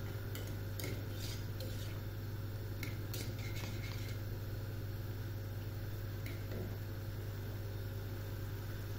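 Wire whisk stirring thick béchamel in a saucepan, its wires clicking against the pan several times in the first four seconds and once more about six seconds in, over a steady low hum.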